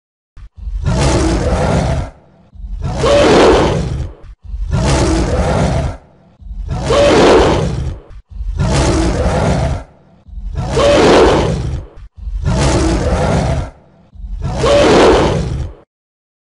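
Tiger roaring: eight loud roars, each about a second and a half long, one every two seconds. The same pair of roars repeats four times over.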